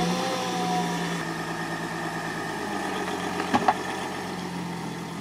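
Mercedes Sprinter van's diesel engine idling just after a start, its speed settling down in the first second, then running steadily. A brief knock about three and a half seconds in.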